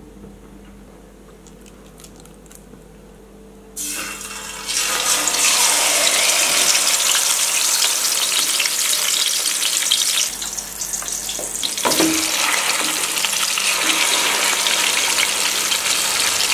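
Whole fish coated in masala paste frying in hot oil in an aluminium pan, making a loud, even sizzle that starts suddenly about four seconds in and keeps going. The first few seconds before it are quiet apart from a faint hum.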